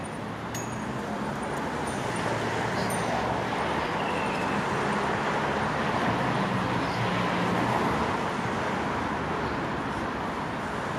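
City road traffic: a steady rush of passing cars, with an engine hum that swells and fades about midway.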